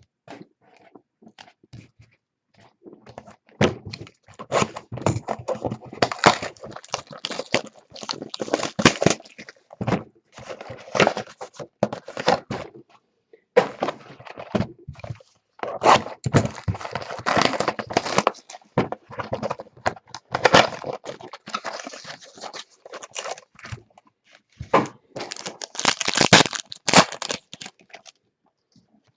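Trading card packs being torn open and the cards handled: crinkling wrappers and clicking, rustling cards in dense bursts starting about three and a half seconds in.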